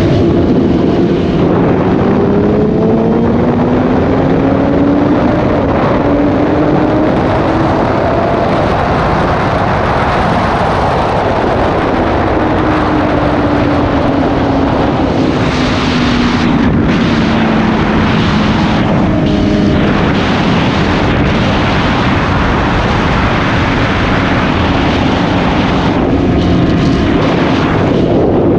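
2016 BMW S1000RR's inline-four engine running through an Austin Racing aftermarket exhaust while riding, rising in pitch as it pulls up through the revs over the first several seconds, then falling slowly as the rider eases off.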